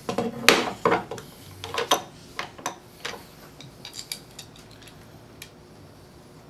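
Light metallic clinks and taps from small hardware being handled while an axle assembly is fitted to a jointmaker's keel. Loudest in the first two seconds, then thinning to scattered small clicks.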